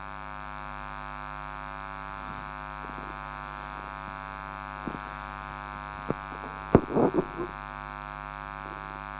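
Steady electrical mains hum, a buzz made of many even overtones. A few faint clicks and knocks sound over it, the loudest a sharp click with a brief cluster of sound about seven seconds in.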